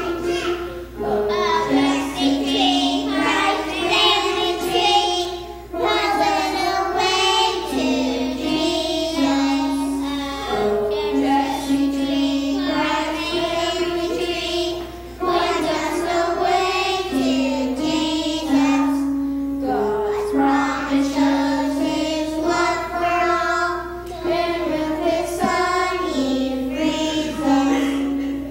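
A group of children singing a song together, in phrases with held notes and brief breaths between them.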